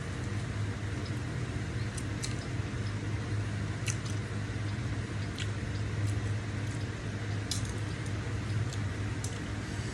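A person chewing a mouthful of fried instant noodles, with scattered small sharp mouth clicks, about seven in all, over a steady low hum.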